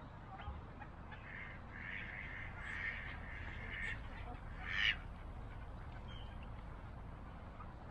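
Mallard ducks quacking: a run of short quacks from about a second in, and one louder call near five seconds, over a steady low background rumble.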